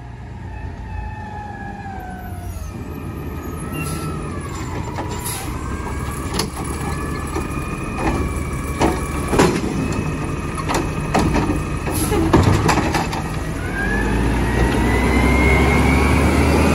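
Natural-gas Mack LR automated side-loader garbage truck working a curbside pickup: engine running with a whine that glides up and down as the lift arm raises and dumps the cart, and several sharp bangs of the cart being shaken out into the hopper. Near the end the engine revs up with a rising whine as the truck pulls away.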